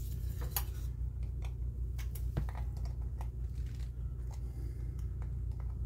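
Scattered small metal clicks and scrapes as pliers and a small tool work the tabs on a 1977 Corvette clock housing, over a steady low hum.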